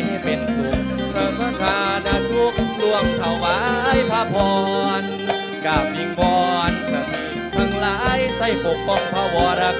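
Isan pong lang folk ensemble music: melodic lines from the band's instruments over a steady drum beat.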